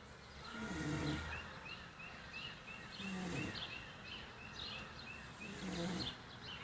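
A man snoring in his sleep: a rough, pitched snore about every two and a half seconds.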